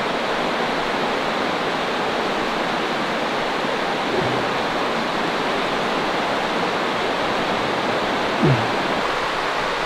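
A creek rushing steadily: an even wash of running water. Two brief, low, falling sounds cut through it, one about four seconds in and a louder one near the end.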